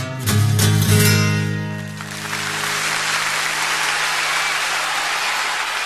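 Acoustic guitar strumming the final chords of a song, which ring out and fade, then audience applause from about two seconds in.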